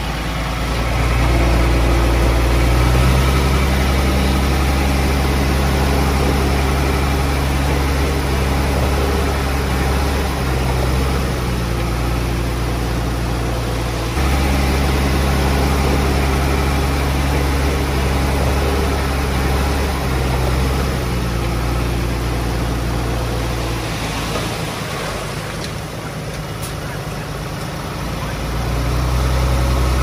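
Komatsu D20P bulldozer's diesel engine running under load as the dozer works, its note shifting in pitch a few times. It eases off for a few seconds near the end, then picks up again.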